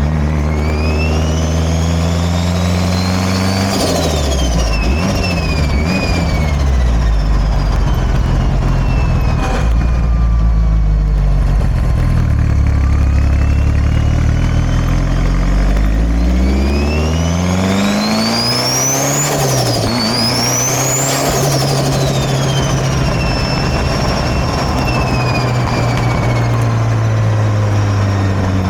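Turbocharged 4G63 inline-four of a 2004 Mitsubishi Lancer Evolution VIII MR with a Garrett turbo, revving up and dropping back twice between steadier running. A high turbo whine rises and falls with the revs.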